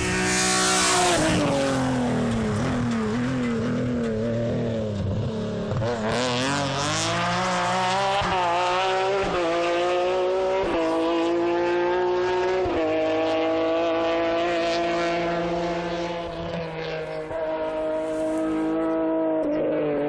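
Rally BMW M3 engine at full throttle. A loud burst of engine and tyre noise comes at the very start and the engine note falls over the next two seconds; then the car accelerates hard through several gears, the pitch climbing and dropping suddenly at each upshift, about 9, 11 and 13 seconds in.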